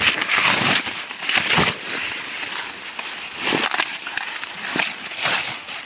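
Dry corn leaves and husks rustling and crackling close by, with a few sharper snaps, as corn plants are handled while ears are picked.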